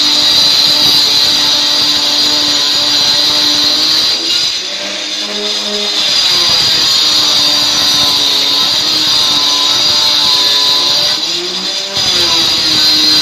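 Handheld electric stone saw with a diamond blade cutting along a granite slab: a loud, steady high whine. It eases and shifts in pitch briefly twice, about four seconds in and again near eleven seconds in.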